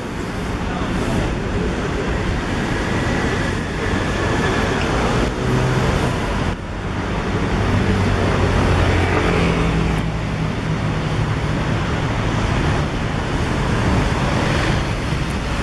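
City boulevard traffic: a steady wash of cars and engines going by, with a low engine drone from a nearby vehicle through the middle.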